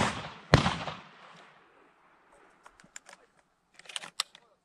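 Two shotgun shots about half a second apart, the second one louder, each trailing off in an echo over about a second. A few light clicks and knocks follow around three to four seconds in.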